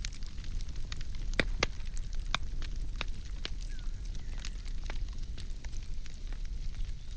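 Firewood burning, crackling and popping at irregular moments over a steady low rumble of the flames, with a few louder pops between one and two and a half seconds in.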